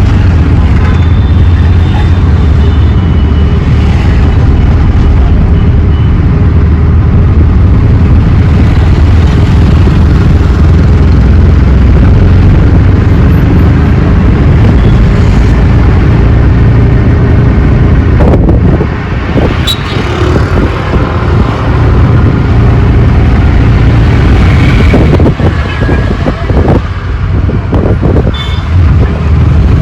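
Auto rickshaw engine running steadily during a ride, loud, with wind and road noise. Twice, about two-thirds of the way through and again near the end, the engine sound drops off and a few knocks and rattles come through.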